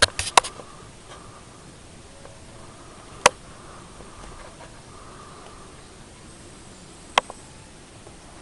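Two sharp single clicks about four seconds apart, after a brief clatter of handling at the start, over a faint steady hiss.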